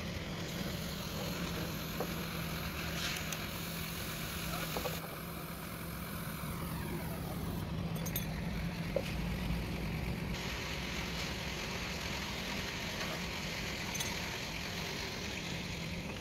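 Steady low hum of a running engine or machine, with a few faint clicks.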